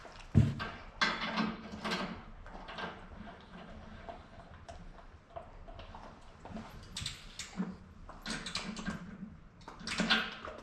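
Knocks, clicks and clatter of metal parts and hardware being handled while a cross member is bolted onto a sawmill frame, with the sharpest knock about half a second in.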